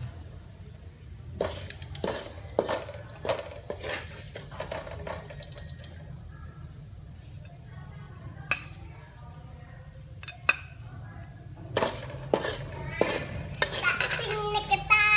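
Metal spatula scraping and knocking against a wok while fried lemongrass chicken is scooped out onto a plate: irregular clinks and scrapes, a few at a time with pauses between. Near the end a child's voice starts.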